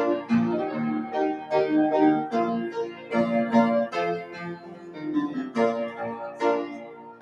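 Piano playing a piece of chords and melody, notes struck one after another and each fading away.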